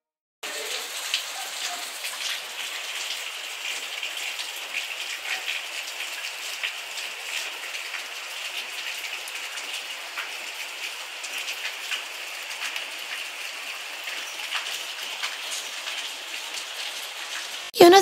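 Rain falling steadily: a dense, even hiss of rain with the patter of many small drops. It starts about half a second in and cuts off suddenly near the end.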